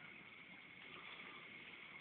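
Near silence: a faint, steady high-pitched whine over a light hiss, with no distinct events.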